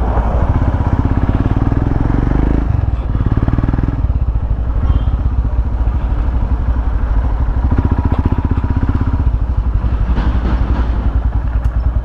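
Royal Enfield Himalayan's single-cylinder engine running while the bike is ridden on the road, a steady rapid pulsing exhaust note. The engine note dips briefly about two and a half seconds in.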